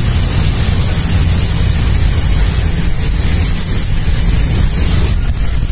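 Wind buffeting the microphone: a loud, steady, flickering rumble with a hiss over it.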